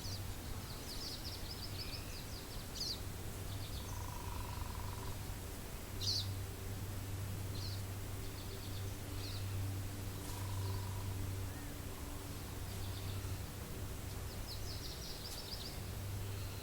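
Small birds calling over a steady wind hush: a fast, high trill about a second long near the start and again near the end, with sharp single chirps in between.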